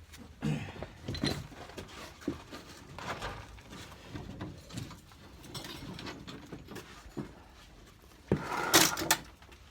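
Scattered knocks and scraping from heavy lawn-tractor frame parts being handled and set down by hand, with a sharp knock and a louder scrape about eight and a half seconds in.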